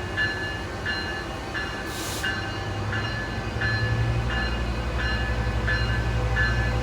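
A train's low engine rumble, which grows louder about three and a half seconds in. Over it a railroad bell rings evenly, about three strokes every two seconds.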